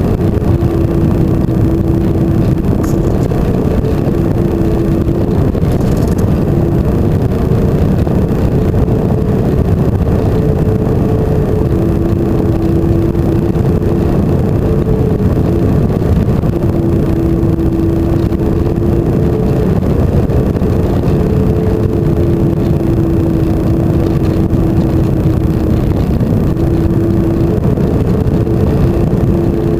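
Electric motor and propeller of a flying-wing FPV model plane in flight: a steady whine that steps up and down between two pitches every few seconds over a loud, constant rush.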